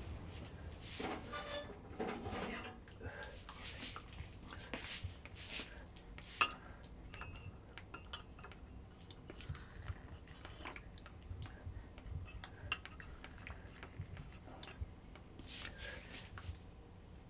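Small clinks and knocks of cups, cutlery and a pot being handled and set down on a kitchen counter, with a few short rustles; the sharpest knock comes about six seconds in.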